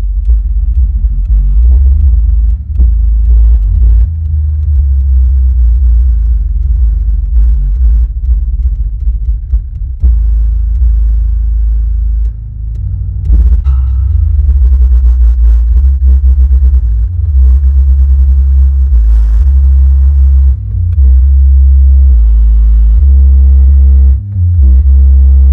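Bass test track played loud through a 12-inch Bravox UXP subwoofer driven by a Corzus HT600 mono amplifier: very deep, loud bass notes that hold and change pitch every second or so, with little above them.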